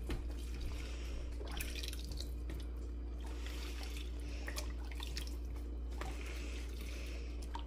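Chicken broth poured from a ladle into a plastic strainer over a blender jar, dripping and trickling through, with a few light taps scattered through. A steady low hum runs underneath.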